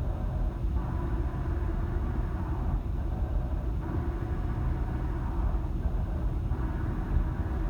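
Vehicle running on a test drive: a steady low rumble of drivetrain and road noise, with a rushing mid-range noise that comes and goes. The run is made to check a complaint of noise from the gearbox.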